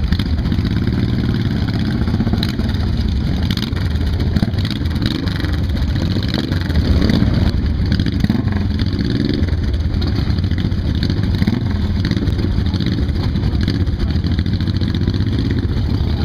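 A group of cruiser motorcycles riding slowly past at low revs, their engines running together, with one revving up briefly near the middle.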